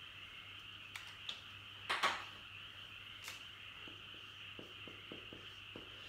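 Faint sounds of dry-erase markers being handled and written with on a whiteboard: a few short clicks, one louder brief scrape about two seconds in, then soft small strokes, over a steady hiss of room noise.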